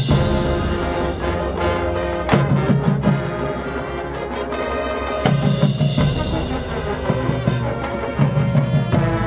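A marching band playing: brass sustain loud chords over pounding low drums and timpani-like hits.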